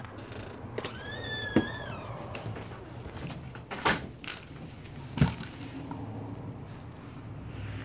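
A door swings open with a squeaky hinge giving one squeal about a second long, and a few sharp knocks and clicks follow over the next few seconds. A low steady hum runs underneath.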